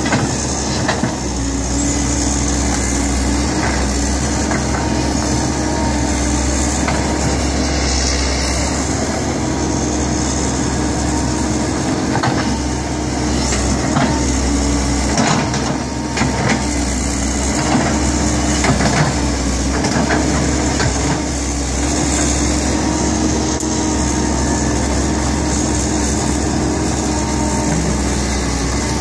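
Kobelco hydraulic excavator's diesel engine running steadily under working load, with scattered short knocks and cracks.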